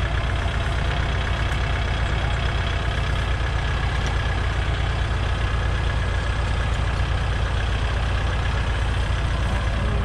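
Kubota tractor's diesel engine idling steadily, an even low rumble with a fast pulse.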